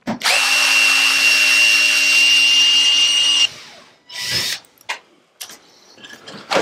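Cordless drill running at a steady speed, backing screws out of a plywood shipping crate to open it. The whine starts just after the start and cuts off sharply about three and a half seconds in, followed by a shorter burst and a few knocks against the wood.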